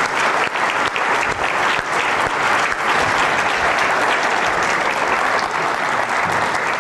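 Audience applauding in a large hall, a steady dense clapping.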